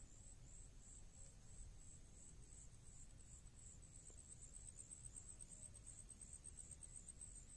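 Faint, high-pitched insect chirping: a steady run of short pulses that quickens in the second half, over a low rumble.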